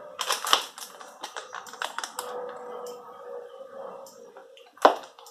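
Handling noise of hard objects: a quick run of clicks and taps, then one sharp knock near the end.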